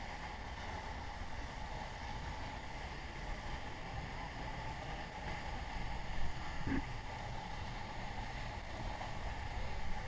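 Steady rushing of a large, fast-flowing waterfall, mixed with low rumble from wind and clothing rubbing on the microphone, and a brief bump against the microphone between six and seven seconds in.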